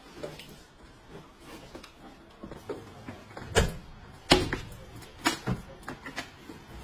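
A few sharp knocks and clatters as a plastic laundry basket is handled and set down and the door of a front-loading washing machine is opened for loading laundry, the loudest about four seconds in.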